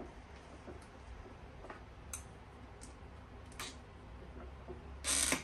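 Small, scattered clicks and ticks of parts being handled and fitted inside an open metal electronics chassis, with one short, louder scrape near the end.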